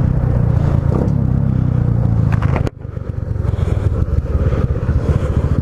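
Honda Biz 125's single-cylinder four-stroke engine running through a Protork V3 sport exhaust fitted with an aluminium baffle insert, heard while riding. The sound drops abruptly about two and a half seconds in, then builds back up with a rapid, even exhaust pulse.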